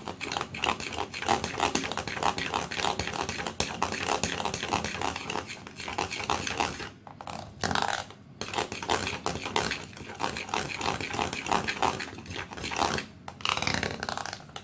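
Metal spoon scraping and clinking against a glass bowl while stirring a thick batter of crushed chocolate sandwich cookies and milk: a rapid, uneven run of strokes, with short pauses about seven seconds in and again near the end.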